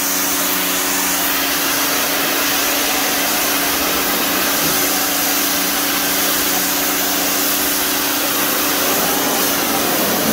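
Greenworks 1600 psi electric pressure washer spraying with the trigger held: a steady electric motor and pump hum under the loud hiss of the high-pressure water jet. It cuts off suddenly at the end.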